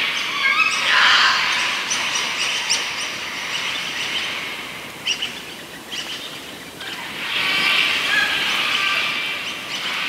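Forest birds calling and chirping over one another in a dense chorus, busiest about a second in and again over the last few seconds, over a steady outdoor hiss. A single sharp click about five seconds in.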